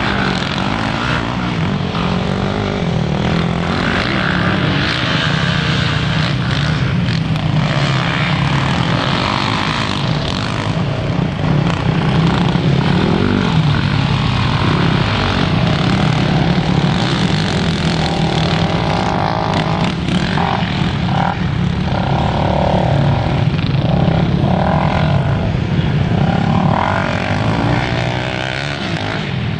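Several sport quad ATVs' engines running on a dirt track, a steady low drone with revs rising and falling as the riders accelerate and pass, busiest in the second half.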